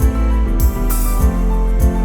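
Music with a steady beat: a low thump a little under twice a second under held, sustained notes.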